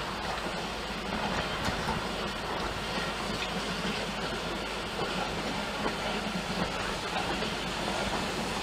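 Coaches of a steam-hauled passenger train rolling past on the nearby track as the train pulls away, a steady rolling rail noise.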